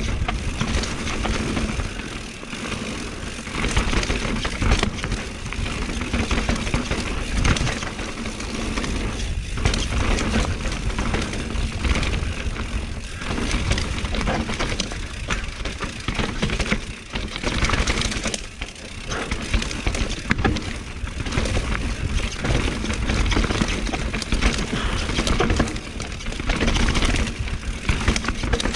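Mountain bike running fast down a dirt trail: a constant rush of wind buffeting the camera microphone, with tyre noise on the dirt and many rattles and knocks from the bike over bumps, roots and rocks.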